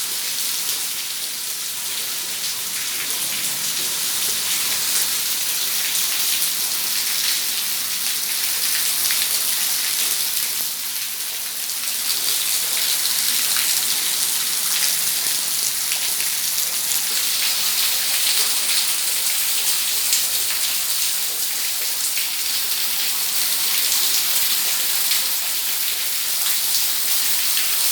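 Heavy rain falling steadily, a dense hiss with many small drop impacts on surfaces.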